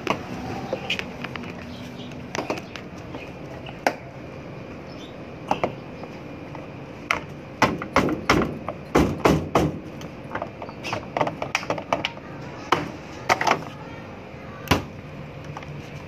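Sharp plastic clicks and knocks, with a quick cluster of them about halfway through, as the top control-panel cover of a Daewoo 7 kg top-loading washing machine is unclipped and lifted off.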